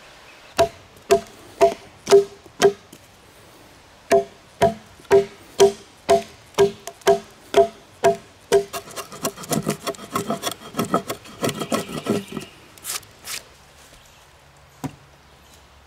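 Metal-headed hand tool striking a peeled log as a notch is cut. It lands about fifteen ringing blows, roughly two a second, in two runs with a short pause between. Then come a few seconds of fast, rough scraping strokes, and near the end a couple of single wooden knocks.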